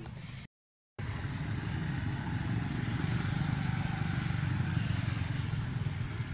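Motorbikes and scooters running past on a road: a steady low engine hum that swells about three to five seconds in. The sound drops out completely for half a second near the start.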